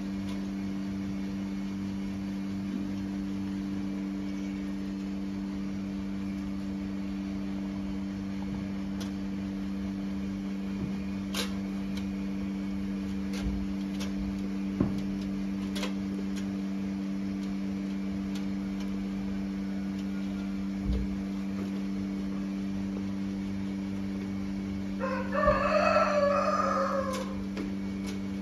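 A steady low hum with a few faint knocks, and near the end a rooster crowing once for about two seconds, the loudest sound.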